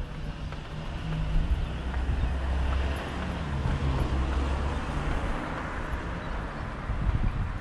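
A motor vehicle passing nearby: a low engine rumble with tyre noise that swells in the middle and fades toward the end.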